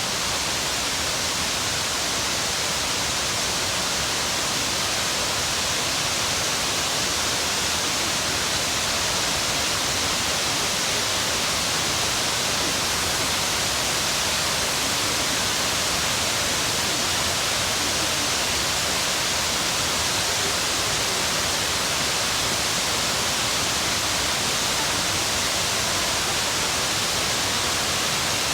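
Steady rush of Shiraito Falls, water pouring down a wide cliff face in many thin falls, an even hiss with no breaks or changes.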